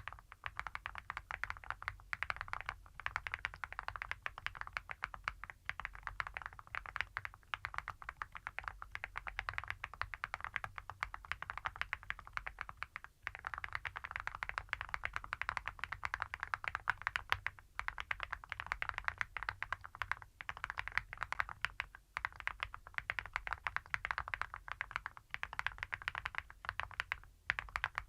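Mechanical keyboard with Epomaker Creamy Jade switches and full metal Awekeys keycaps being typed on quickly and continuously, giving a heavy, clacky keystroke sound, with a few brief pauses.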